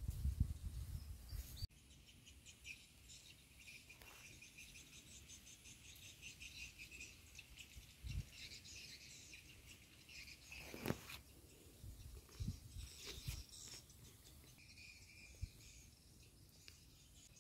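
Garden ambience of insects and birds chirping in a steady, finely pulsing high chorus. A low rumble cuts off abruptly near the start, and a few short thumps come in the second half.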